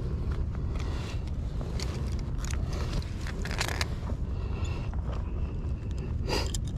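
Steady low rumble of surf and wind on a body-worn camera, with a few short scrapes and clicks from hands handling a plastic minnow plug and its treble hooks, the sharpest of them near the end.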